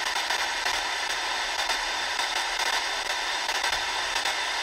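Steady FM static hiss from an XHDATA D-808 portable radio's speaker as it is tuned up through the OIRT (UKV) band near 70–72 MHz: no stations on air, the band is empty.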